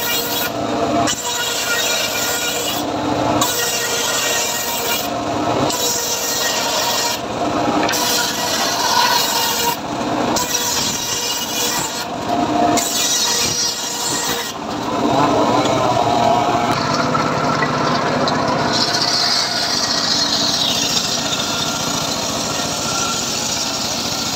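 Homemade bench circular saw ripping old teak planks lengthwise. The cutting sound dips briefly every second or two through the first half, then runs steadier.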